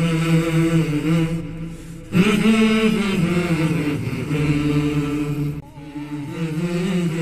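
Wordless vocal chant: a voice holding long, slowly bending notes in drawn-out phrases. It breaks off briefly about two seconds in and again near six seconds.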